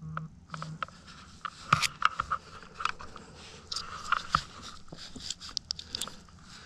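Close rustling of clothing and gear with many sharp clicks and scrapes as a hunter shifts his hands on the tree trunk and his rifle.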